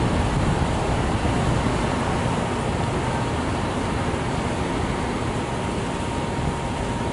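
Steady outdoor city noise: road traffic and distant elevated subway trains running, with a faint steady high tone throughout.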